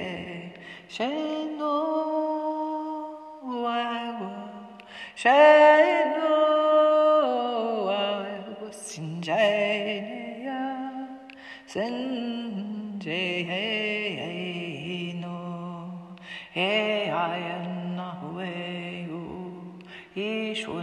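A single voice singing a wordless light-language chant, holding long notes and sliding up and down between pitches.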